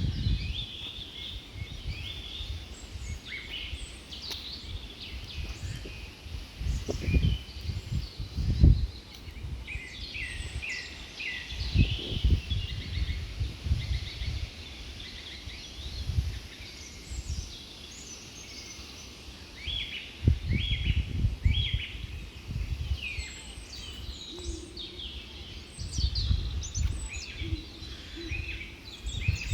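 Small birds chirping and calling over and over in an outdoor soundscape, with a low rumbling noise that swells and fades several times.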